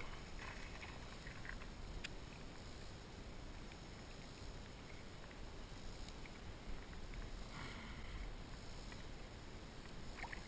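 Faint ambient sound of a kayak on the water, with a steady low rumble, a light click about two seconds in and a brief rustle near eight seconds.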